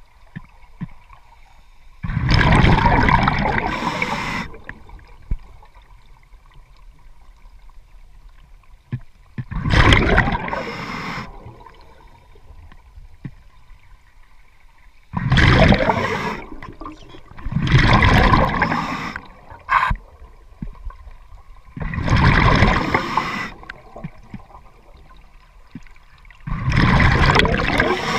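Scuba diver's exhaled breath bubbling out of the regulator underwater: six bursts of bubbles, each lasting one to two seconds, a few seconds apart, one breath after another.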